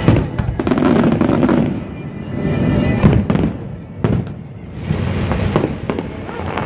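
Aerial fireworks bursting, with booms and crackle and sharp bangs at the start and about three seconds in. Music plays underneath.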